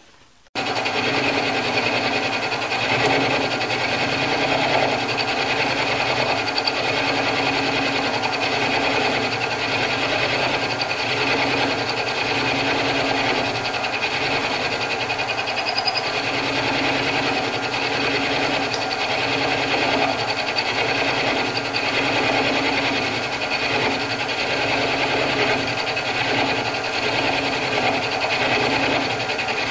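Optimum D180x300 Vario mini lathe running with a cutter in its chuck, milling a metal workpiece held in a vertical milling slide: a steady motor whine mixed with the rough noise of the cut. It starts abruptly about half a second in.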